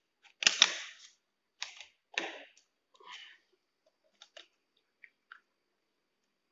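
Plastic housing of an old ceiling-fan wall switch being cracked and broken apart: a string of sharp cracks and clicks, the loudest pair about half a second in, then smaller snaps spaced over the next five seconds.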